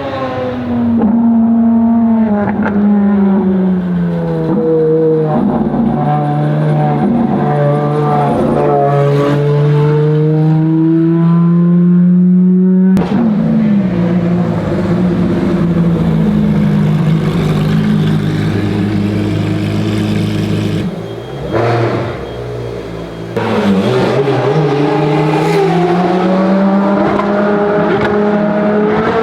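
Ferrari FXX Evoluzione's V12 engine running hard on track. Its pitch drops early on as the car slows, then holds and climbs again under power. The sound changes abruptly about halfway through, dips quieter a little later, then rises in pitch toward the end as the car accelerates.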